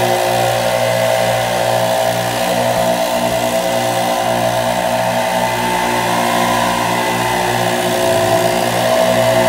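Gas-powered Stihl backpack leaf blower running steadily at working speed, its engine note mixed with the rush of air from the blower tube; it gets a little louder about eight seconds in.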